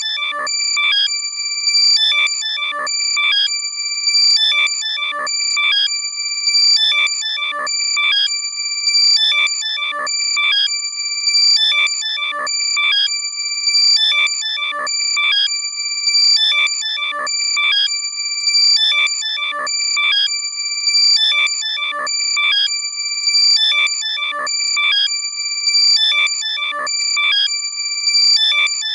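Loud, heavily compressed electronic ringtone-like chime: a short high-pitched chirping phrase over steady high tones, repeating about every two seconds. It is meant to be played through a lost AirPod to locate it by ear.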